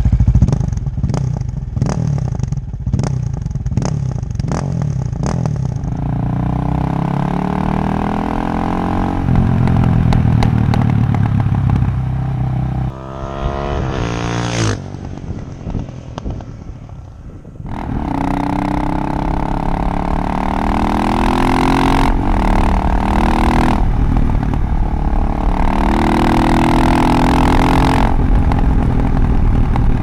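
KTM 640 Duke II's single-cylinder LC4 engine through an Akrapovic exhaust, ridden hard and revving through the gears, its pitch climbing again and again as it accelerates. In the first few seconds there is a run of sharp cracks, about two a second.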